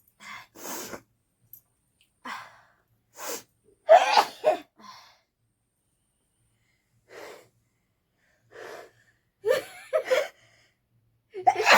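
People sneezing again and again, with sharp breaths and gasps between. The sneezes are brought on by poking a cotton bud into the nose. The loudest come about four seconds in and near the end.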